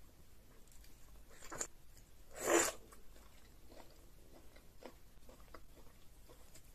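Close-miked eating sounds: a person chewing a mouthful of fufu and egusi soup, with soft wet mouth clicks and one louder smack about two and a half seconds in.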